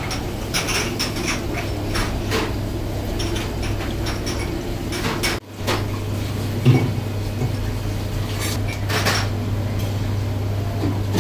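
Plates and cutlery clinking in scattered, irregular clatters over a steady low hum, with a momentary gap a little past halfway.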